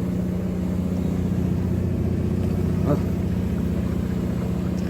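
Fishing boat's diesel engine running steadily at low revs, a deep even drone with a fast regular pulse.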